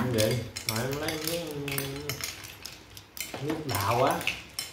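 Metal spoons clinking and scraping in ceramic bowls of fruit with ice and milk as people eat, many short clinks through the whole stretch. A low voice talks through the first two seconds and again briefly near the end.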